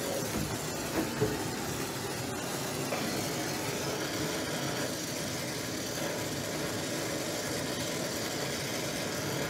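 Brazing torch flame burning with a steady hissing rush while copper refrigerant lines are brazed, with a couple of light knocks about a second in.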